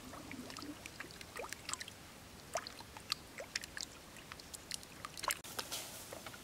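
Hands washing eggs in shallow stream water: a string of small splashes, drips and plops, with the loudest splash about five seconds in.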